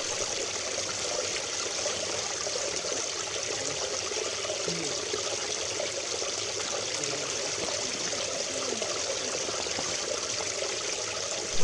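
A small stream running and trickling among boulders, as a steady, even rush of water.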